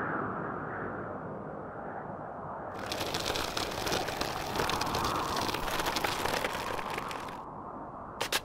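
Animation sound effects: a steady low rushing noise, overlaid from about three seconds in by dense crackling that stops abruptly, then two or three sharp cracks near the end.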